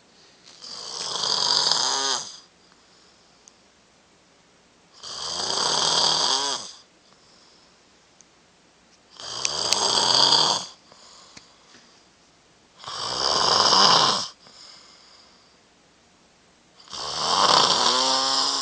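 A person snoring heavily: five long snores about four seconds apart, each a buzzing rattle with a breathy hiss, and quiet between them.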